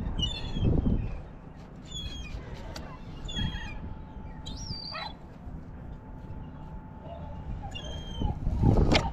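An animal's short, high-pitched squealing calls, repeated about once a second, some bending down in pitch. Under them runs a low rumble, with louder low thuds at the start and near the end.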